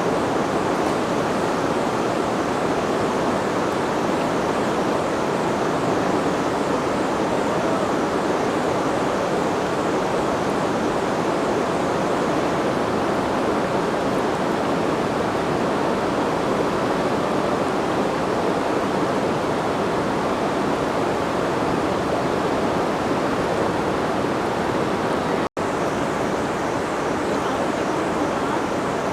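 Jaldhaka River water rushing steadily, an even unbroken roar of flowing water. It cuts out for an instant about 25 seconds in.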